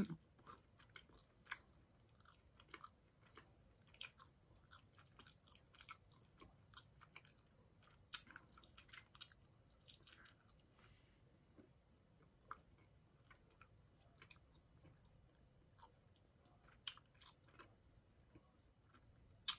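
Faint chewing of red Twizzlers licorice close to the microphone: irregular soft mouth clicks and smacks.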